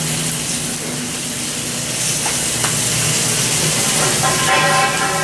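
Meat and cabbage sizzling steadily on an electric grill plate, with a couple of light clicks from metal tongs as the pieces are turned.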